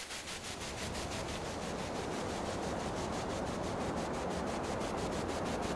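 A steady rushing, rubbing noise that pulses fast and evenly, about five or six times a second, and grows slowly louder.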